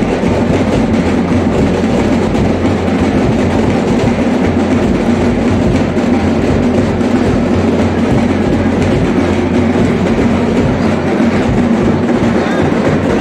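Loud, unbroken din of a Muharram tazia procession moving through a packed street.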